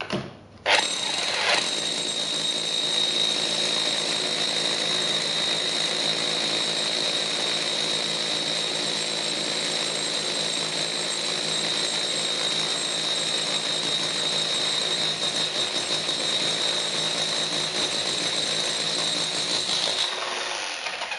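Makita HR3210C 850-watt SDS-Plus rotary hammer drilling into limestone with a larger masonry bit, running steadily with a high whine over the hammering. It starts about a second in and winds down near the end.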